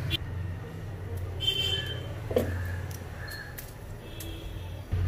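Light taps and clicks of garlic pieces dropped into a steel mixer-grinder jar over a steady low hum; near the end the mixer grinder's motor starts up with a loud low hum.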